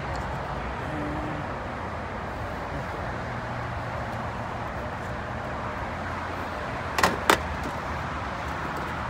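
Steady background noise with two sharp clicks about seven seconds in, a third of a second apart, as the metal mesh grate and marker are handled against the car's plastic bumper.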